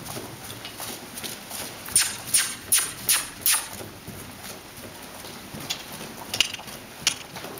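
Horse walking on arena sand with its hoofbeats heard. About two seconds in comes a quick run of five sharp clicks, followed later by a few single clicks.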